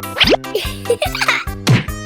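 Upbeat children's background music with a steady beat. A quick rising pitch glide plays about a quarter second in, and a falling glide near the end, like cartoon sound effects.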